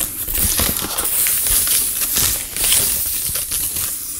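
Paper bag of granulated sugar crinkling and rustling as a plastic measuring cup digs into the sugar to scoop out a cupful: a steady run of crackly rustling.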